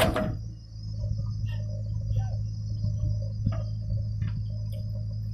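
Diesel engine of a JCB 3DX backhoe loader running steadily as its backhoe bucket digs into soil, with a loud knock right at the start and scattered lighter knocks. Insects chirr steadily in the background.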